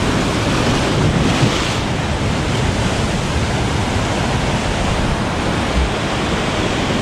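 Heavy surf breaking and washing over a rocky reef shoreline: a steady rush of whitewash, swelling a little about a second in, with wind buffeting the microphone.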